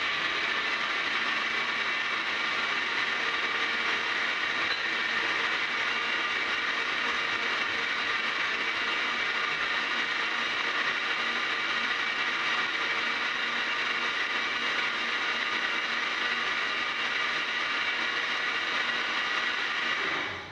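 Countertop blender motor running steadily at speed, blending a creamy liquid batter, then cutting off near the end.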